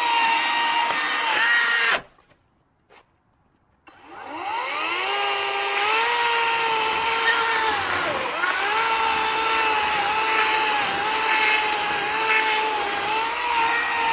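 EGO 18-inch 56-volt battery chainsaw cutting through a log: a steady electric motor whine with the rasp of the chain in the wood. It cuts off about two seconds in, then after a short pause spins back up with a rising whine and runs on through the cut, its pitch dipping briefly about eight seconds in.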